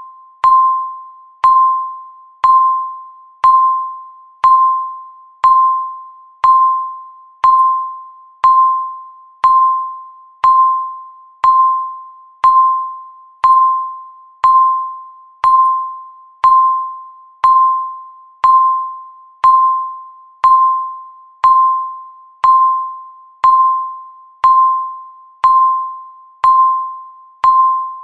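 Electronic countdown-timer beep sounding once every second: a single pitched, chime-like tone that starts sharply and fades within about half a second, repeating evenly.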